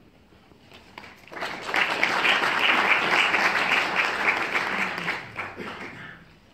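An audience in a lecture room applauding, starting about a second in, holding steady, then dying away near the end.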